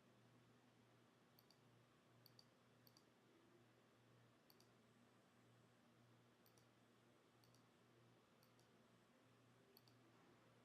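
Faint computer mouse clicks, about eight of them at irregular intervals, each a quick press-and-release double click, over a low electrical hum.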